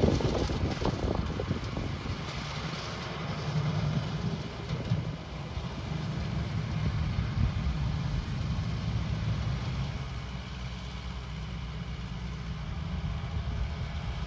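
Farm tractor engine running steadily while pulling a rotary mower through grass, with wind buffeting the microphone in the first second.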